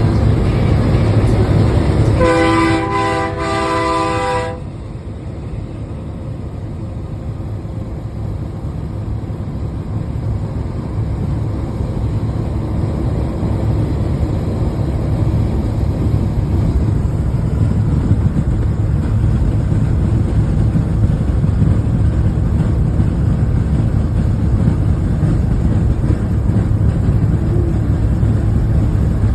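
Heavy truck running with a steady low rumble. About two seconds in, an air horn sounds a multi-note chord for about two seconds. Afterwards the rumble grows gradually louder.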